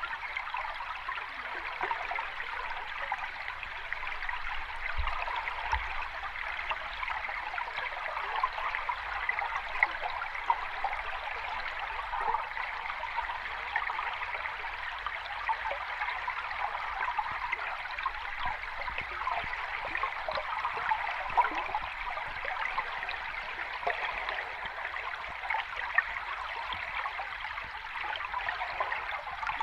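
Running water of a small cascading stream, a steady splashing babble with little low rumble and small splashes standing out now and then.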